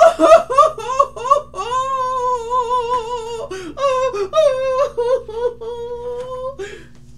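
A woman's voice humming without words in long, wavering held notes after a few short syllables, dropping away near the end.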